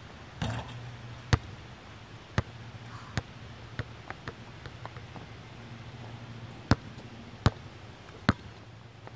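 Basketball bouncing on an outdoor court as it is dribbled: a series of sharp single bounces about a second apart, with a pause in the middle before three more.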